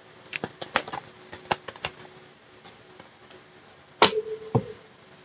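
Tarot cards being handled: a string of irregular light clicks and taps, with a louder knock about four seconds in.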